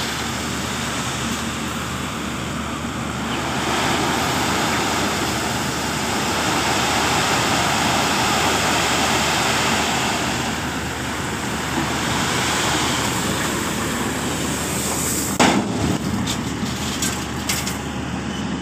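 Crushed stone sliding and pouring off the raised bed of a tipper truck: a steady rushing hiss over the low, even hum of the truck's engine running. About fifteen seconds in, a sharp knock followed by a few smaller clicks.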